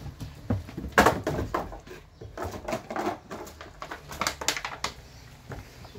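An empty plastic drink bottle hits a wet wooden deck about a second in, then crackles and crunches in quick, irregular clicks as a dog grabs it and chews it.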